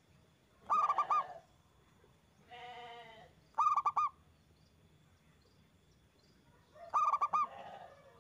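Zebra dove (perkutut) cooing: three short phrases of quick, clipped notes, one near the start, one in the middle and one near the end, with a different lower call between the first two.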